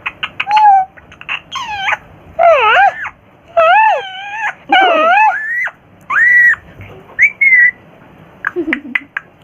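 Indian ringneck parrot vocalising: a run of quick clicks, then a string of separate pitched calls, whines and whistles, each bending up and down in pitch, with more clicks near the end.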